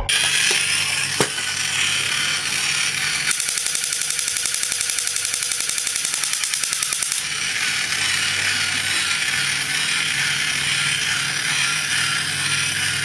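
A small mechanism clicking rapidly and evenly, a steady mechanical rattle.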